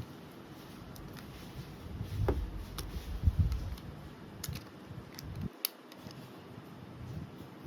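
Small handling noises from work on a compact digital camera: dull bumps and rubbing for a second or two, then a few sharp little clicks.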